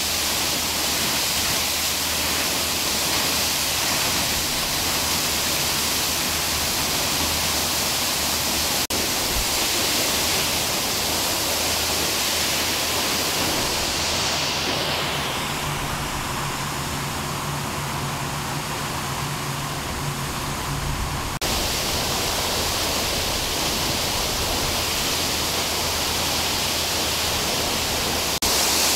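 Water gushing from a sheared-off fire hydrant: a steady rushing hiss of spray and falling water. Its tone changes abruptly a few times, and in the middle stretch it turns duller with a low steady hum beneath it.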